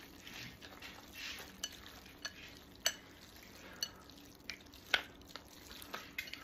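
Wooden chopsticks mixing gravy-covered noodles in a ceramic bowl: a soft, wet stirring noise broken by sharp clicks of the chopsticks against the bowl, about eight or nine times at uneven intervals.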